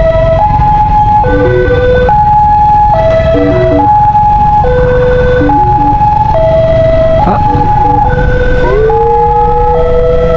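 Ambulance siren sounding a repeating pattern of stepped tones that changes pitch about once a second. Near the end a second siren rises in pitch and then holds a steady tone. A low engine and road rumble runs underneath.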